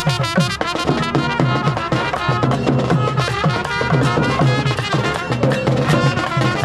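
Music with drums and percussion beating a fast, steady rhythm.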